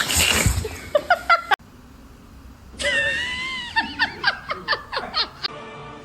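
Short bursts of a person's laughter, cut off abruptly. After a pause comes one long, wavering high-pitched cry, then a quick run of laughing bursts.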